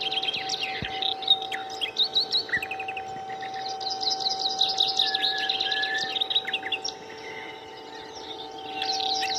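Several small birds chirping in quick, overlapping calls, going quieter about seven seconds in and picking up again near the end, over a steady two-note hum.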